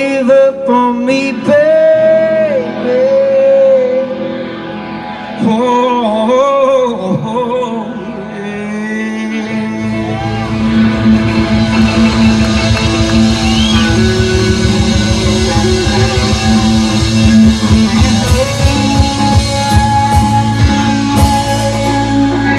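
Live rock band playing: singing with instruments for the first several seconds, then the full band with drums comes in about ten seconds in and plays on loudly.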